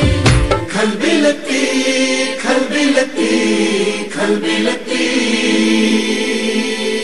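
Dance-number music. About half a second in, the bass and beat drop out, leaving a chanted, choir-like vocal passage over a sustained backing.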